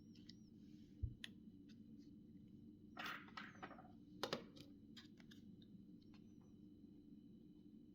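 Faint handling sounds of a mobile phone being taken apart: scattered small clicks, a dull bump about a second in, a short scrape around the middle and a sharp pair of clicks just after, over a low steady hum.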